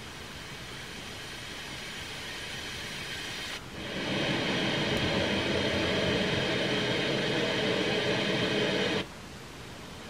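Sound Oasis BST-80 sleep sound machine playing steady noise-like sleep sounds through its small speaker. About three and a half seconds in it switches to a louder, fuller track with a steady hum in it, and about a second before the end it switches back to a quieter, hissy one.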